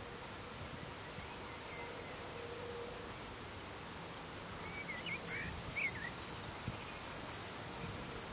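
Yellowhammer singing one phrase about halfway through: a quick run of about a dozen repeated high notes, then a single longer drawn-out note.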